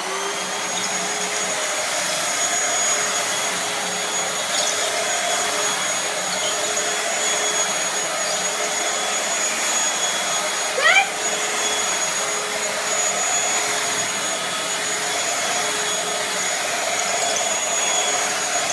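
Bissell Featherweight bagless stick vacuum's 140-watt motor running steadily with a constant high whine. About eleven seconds in there is one brief rising sound.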